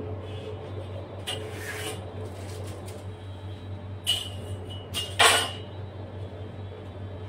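A few short knocks and scrapes as a plastic cake scraper is pressed into the side of a cream-iced cake and the turntable under it is handled, the loudest about five seconds in, over a steady low hum.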